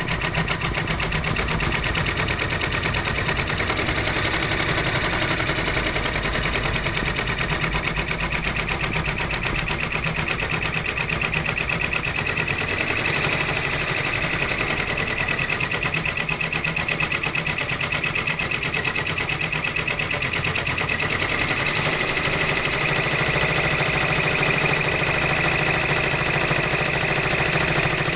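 Brother PR-620 six-needle embroidery machine stitching at speed: a rapid, even rattle of needle strokes that runs steadily without a break.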